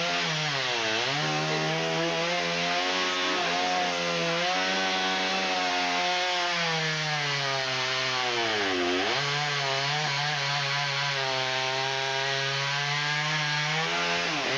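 Chainsaw running at speed while cutting wood. Its pitch sags briefly as it bogs down about a second in and again about nine seconds in, then recovers.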